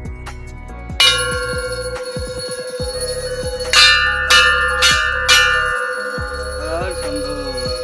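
Hanging metal Hindu temple bells rung by hand. One bell is struck about a second in, then four quicker strikes come in the middle, and the tones ring on and overlap.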